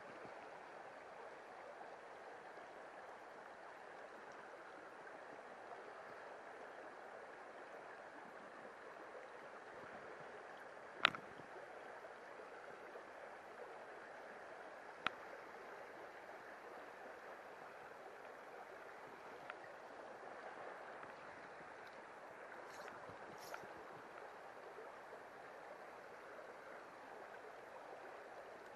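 River water running over rocks, a steady soft rush. A sharp click about eleven seconds in and a fainter one around fifteen seconds cut through it.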